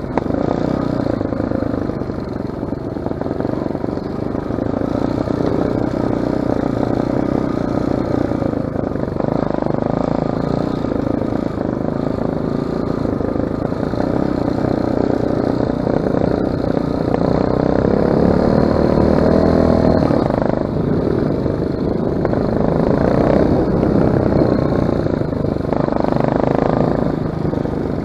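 Off-road motorcycle engine running while being ridden along a trail, the revs rising and falling with the throttle, with some clatter over the rough ground.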